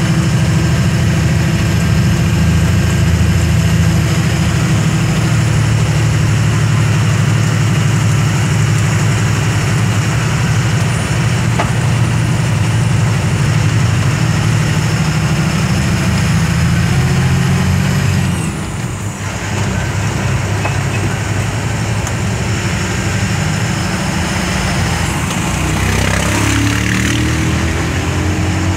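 Engine of a heavy vehicle running steadily under way, heard from inside the cab as a loud, deep drone. The drone briefly drops and then picks up again about two-thirds of the way through.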